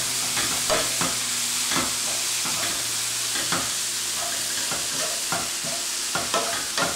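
Cabbage and rice frying in oil in a pan, a steady sizzle, while a wooden spatula stirs and scrapes through it with irregular clicking strokes; the stir-fry is kept moving constantly so that it does not burn.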